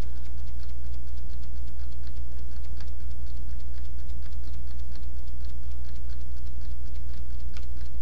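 Computer keyboard key tapped over and over, about four light clicks a second, as text is deleted character by character. Under it runs a loud, steady low electrical hum.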